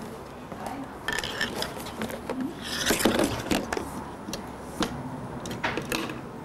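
Camera handling noise: irregular rustling and clicks close to the microphone. They come in clusters about a second in, around three seconds in, and near the end, over a low room hum.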